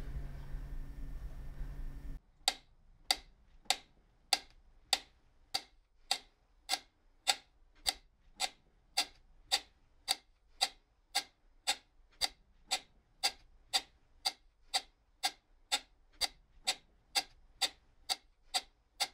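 Acoustic guitar notes ring and cut off abruptly about two seconds in, followed by a metronome ticking steadily, single sharp clicks at about 100 beats a minute.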